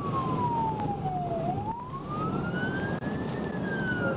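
Police car siren in a slow wail: falling, rising again about halfway through, then starting to fall near the end, over steady road and engine noise.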